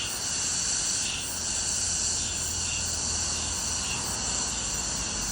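A loud chorus of insects shrilling in the trees: a steady, high-pitched hiss-like drone, with a lower note swelling in and out every second or so.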